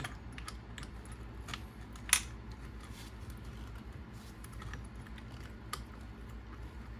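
Scattered small clicks and taps of plastic and metal RC car parts being handled and pulled apart, with one sharper click about two seconds in, over a low steady hum.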